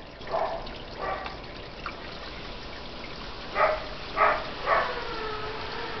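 Water trickling steadily in a small stone-edged garden pond, with a few short, loud calls over it, three in quick succession a little past the middle. Near the end a steady held tone sets in, slowly falling in pitch.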